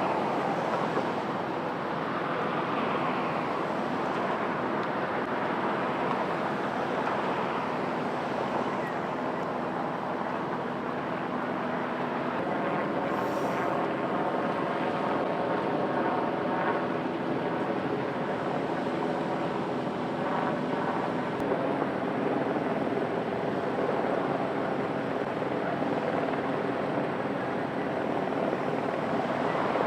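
Light single-turbine helicopter running steadily, a continuous blend of rotor and engine noise. A set of steady tones comes through more plainly in the middle.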